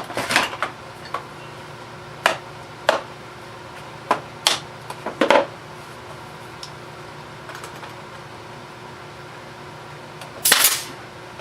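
Brad nailer firing brads into a wooden bottom panel: a run of sharp snaps spread over the first five seconds or so. A longer, louder burst follows near the end.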